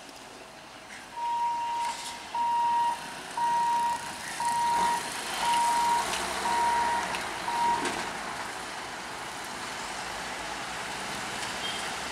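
An electronic warning beeper sounds about seven steady single-pitch beeps, roughly one a second, then stops. After it, a steady rumbling noise slowly grows louder as the EMU train approaches the crossing.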